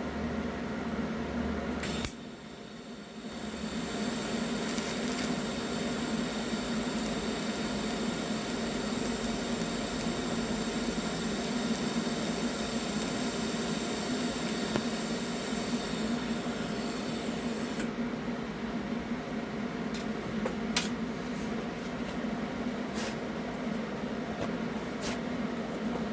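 Eastwood TIG 200 welder's arc running steadily with a buzzing hiss while a last weld spot is laid. It strikes with a click about two seconds in and stops about eighteen seconds in, followed by a few light clicks.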